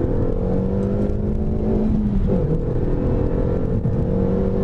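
Renaultsport Mégane 275 Trophy's 2.0-litre turbocharged four-cylinder heard from inside the cabin under way, its pitch slowly rising, with a brief dip in engine pitch about halfway through before it climbs again.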